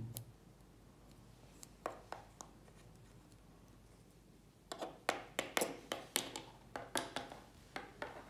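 Light plastic clicks and taps as a LEGO minifigure is handled and set down on a wooden desk: a few scattered clicks, then from about halfway a quick run of taps, roughly three or four a second.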